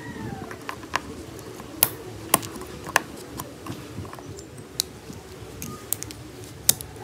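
Metal tweezers clicking and tapping against the metal housing and small plastic gears of an opened geared stepper motor: a string of sharp, irregular clicks, a few of them louder.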